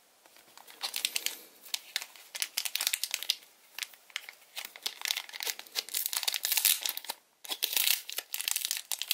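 Thin plastic bags crinkling as hands handle and open a pack of trading cards, in quick irregular crackles with a short pause about seven seconds in.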